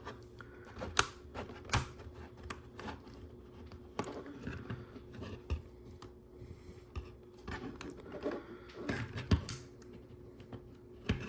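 Plastic LEGO pieces clicking and clattering as they are handled and pressed together, a string of irregular sharp clicks.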